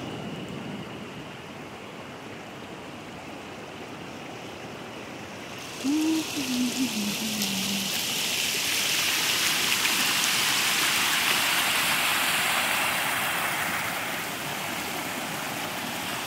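River water rushing over rocks, a steady rush that becomes louder and brighter about six seconds in, where the river runs as foaming rapids. A brief low voice-like sound comes just as it gets louder.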